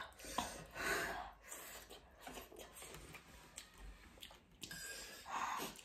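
Eating sounds from a spicy noodle meal: chewing, slurping and breathing, with a few light clicks of spoons and forks on plates. Two short noisy swells stand out, about a second in and near the end.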